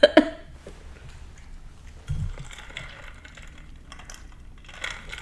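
Close-miked chewing of a Beanboozled jelly bean: small soft mouth clicks, with a sharp click right at the start and a dull low thump about two seconds in.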